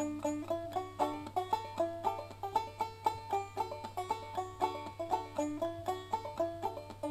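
Background music: a fast plucked banjo tune in a bluegrass style, with a steady low hum beneath it.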